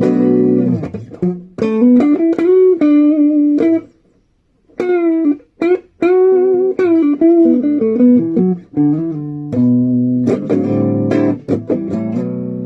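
Gibson ES-335 semi-hollow electric guitar being played after its headstock repair, mixing held chords with single-note lines and string bends, with a brief pause about four seconds in.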